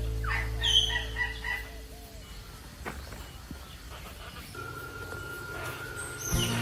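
A bird calling, a few high pitched calls in the first second and a half, with background music dying away.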